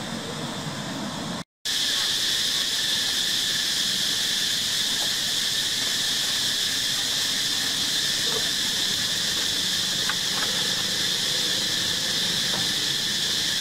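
Steady, shrill drone of insects. It drops out for a moment about a second and a half in, then comes back louder, with a few faint short squeaks over it.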